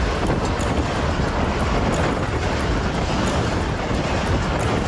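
Pakistan Railways passenger train passing at close range: a loud, steady rush of wheels on rail with wind buffeting the microphone.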